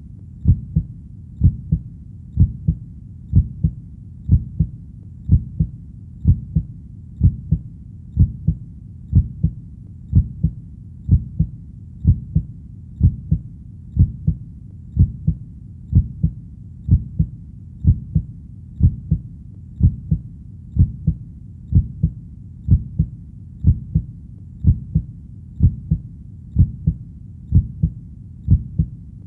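Heartbeat, a steady lub-dub of paired low, muffled thumps at about one beat a second, over a faint low rumble between beats.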